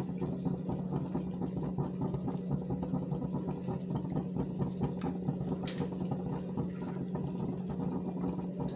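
Biryani pot of chicken masala simmering steadily on the stove under its layer of rice, a fine bubbling crackle over a constant low hum.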